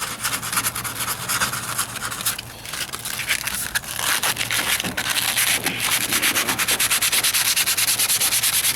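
Sandpaper on a sanding block rubbing over body filler on a truck's wheel arch. Hand sanding, uneven at first, then settling about two thirds of the way in into quick, even back-and-forth strokes, smoothing the filler.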